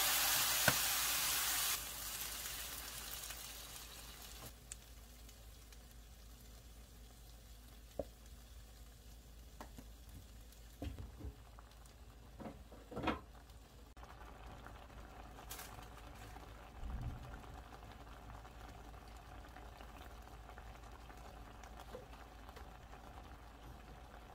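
Pieces of leftover jeon and onion in a frying pan sizzling loudly as soy sauce hits the hot pan, the hiss dropping away in steps over the first few seconds. The sauce then simmers quietly as it reduces, with a few faint knocks.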